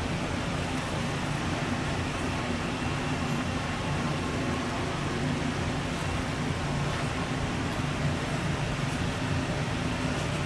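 A steady mechanical hum with a constant low drone and an even rushing noise, unchanging throughout.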